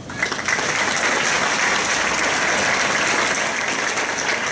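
Audience applauding, breaking out just after the start and holding steady.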